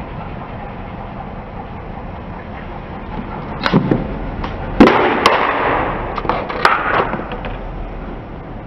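A car tyre rolling over and crushing objects, with sharp cracks and pops and a stretch of crackling, loudest about five seconds in, over a steady low engine rumble.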